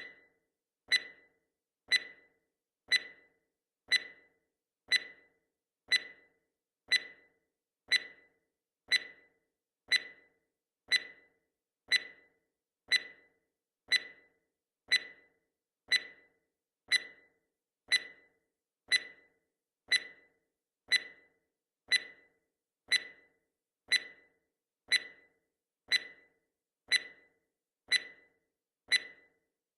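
Countdown timer sound effect: a short, sharp tick once every second, evenly spaced, each dying away quickly.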